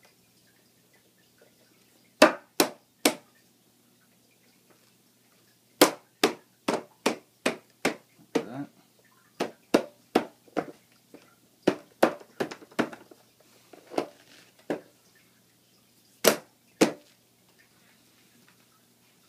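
Irregular sharp knocks and clacks of hard plastic and rod, as an axle rod is worked through schedule 40 PVC pipe fittings and cart wheels are handled onto it. Three quick knocks come about two seconds in, a dense run follows from about six to thirteen seconds, and two loud ones come near the end.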